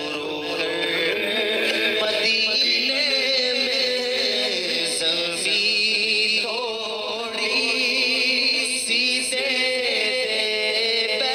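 A man singing an Urdu naat, in long, wavering held notes that bend slowly in pitch.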